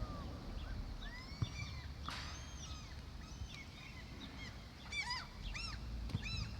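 Gulls calling: scattered short calls, then a quick run of repeated calls about five seconds in, over a low background rumble.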